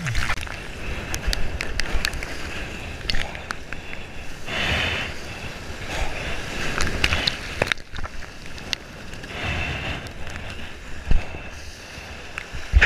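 Whitewater and splashing sea water rushing against a waterproof action camera held at water level. The water comes in uneven surges a couple of seconds apart, with many small clicks and one heavier knock about eleven seconds in.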